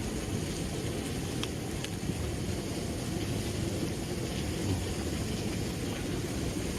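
Steady low rumbling background noise with no clear tone, with a few faint clicks.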